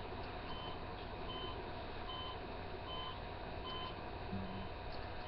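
Faint vehicle reversing alarm beeping steadily, a short electronic beep about every 0.8 seconds, over a low steady background.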